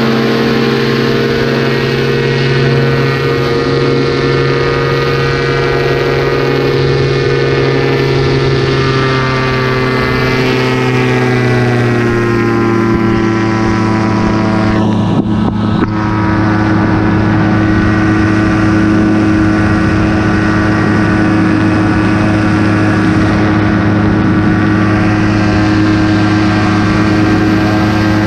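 Paramotor trike's engine and propeller running hard and steady through the takeoff and climb. About ten seconds in, the pitch eases a little lower, then holds steady. There is a brief dip in the sound about fifteen seconds in.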